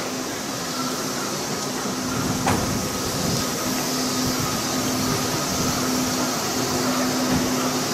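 A car engine idling with a steady hum and a constant low tone, growing slightly louder, and a single sharp click about two and a half seconds in.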